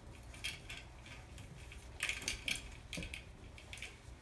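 A microfiber cloth wiping a porcelain sink, with scattered light clinks and rattles from the metal bead chain of the sink stopper, loudest in a short cluster about two seconds in.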